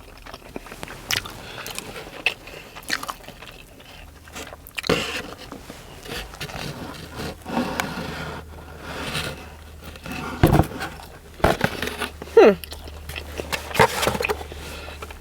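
Close-up biting and chewing of a toasted sub sandwich, with irregular crunches from the toasted bread.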